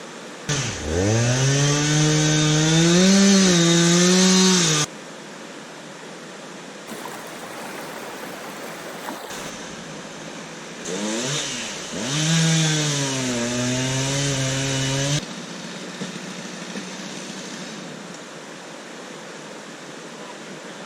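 Chainsaw run in two bursts of about four seconds each, revving up and dipping in pitch as it cuts into a downed tree, each burst stopping suddenly. Between the bursts, river water rushes steadily.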